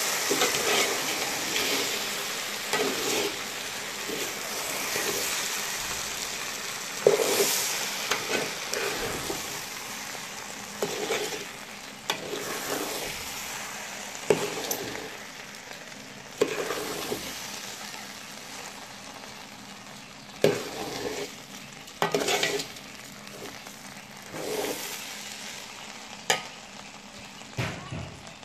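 Rice and beef sizzling in oil in a metal pot while a metal spatula stirs and scrapes through them, with a scrape or knock against the pot every second or two. The sizzle gradually dies down.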